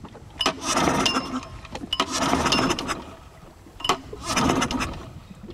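A canoe's outboard motor being pull-started three times, each pull a sharp snap followed by about a second of the engine turning over without catching: the engine is not working.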